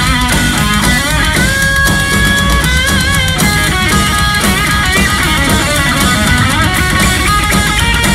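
Live hard rock band playing loud: an electric guitar takes the lead with bent notes and vibrato, holding one note about a second and a half in, over driving drums and bass guitar.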